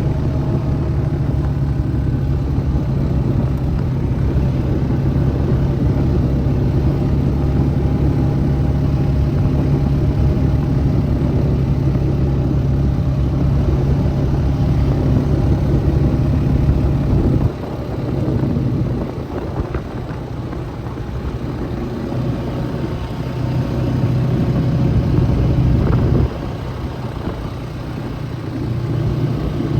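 Vehicle engine running steadily under way. It eases off about two-thirds of the way through, picks back up, eases off again, and rises near the end.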